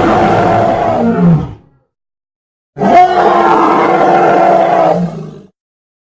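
Monster roar sound effect: a long, loud roar fades out about a second and a half in, and after a gap of silence a second roar of about two and a half seconds follows.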